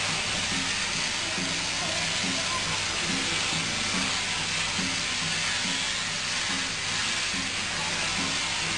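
Electric sheep-shearing handpiece running steadily as its comb and cutter go through the fleece, a continuous hissing buzz.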